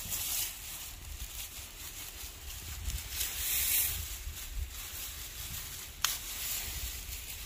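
Rustling outdoors with an uneven low rumble of wind on the microphone, and one sharp click about six seconds in.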